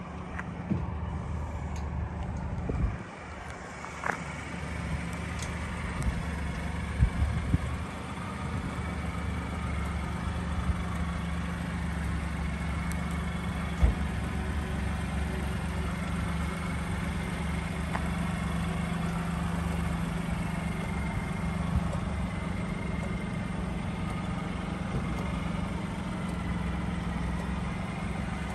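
1988 Mitsubishi Minicab supercharged kei truck engine idling steadily, with a few short knocks along the way.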